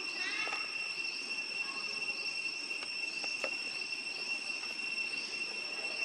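Steady high-pitched insect drone from the surrounding forest, with a few faint high chirps near the start and scattered small clicks.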